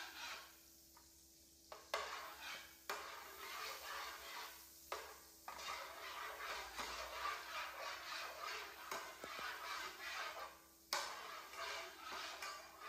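Metal spatula scraping and stirring egg batter in a nonstick frying pan, in quick repeated strokes with several sharp clacks of the spatula against the pan.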